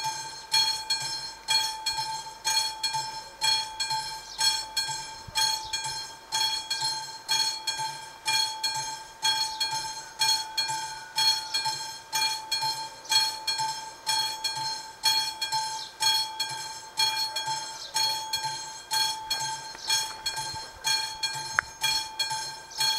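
AŽD 71 level-crossing warning signal's classic bell ringing steadily, about two strokes a second, each stroke ringing on briefly. It is the warning that the crossing is closed for an approaching train.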